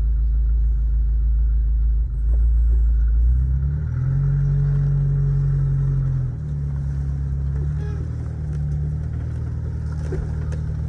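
Jeep engine running as it drives slowly along a rough farm track. The engine note rises and holds louder from about three and a half seconds in, then eases back down about six seconds in.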